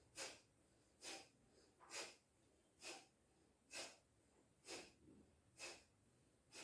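Faint, rhythmic, forceful exhalations through the nose during a fast yoga twisting exercise: eight short puffs of breath, one about every second.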